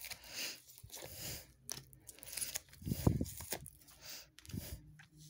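Tarot cards being shuffled and laid down, papery riffling and sliding in several short bursts, with a dull thump about three seconds in.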